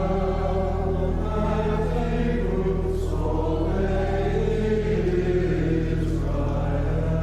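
Church chancel choir singing an anthem in sustained chords over a steady low accompaniment.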